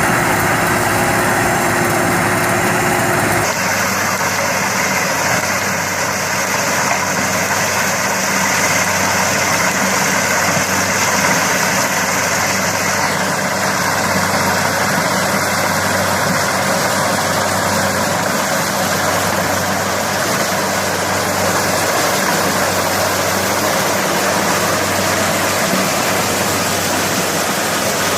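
Engine-driven machinery running steadily with a low hum. The sound changes abruptly about three and a half seconds in and again near the middle, as at cuts between different machines.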